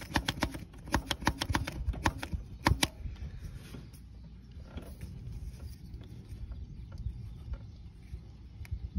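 Hand primer plunger on a 2006 Chevy Silverado Duramax diesel's fuel filter head being pumped by hand, clicking rapidly for about three seconds, then fainter with a click or two near the end. The plunger is limp as a noodle, with no resistance: the fuel system has lost its prime.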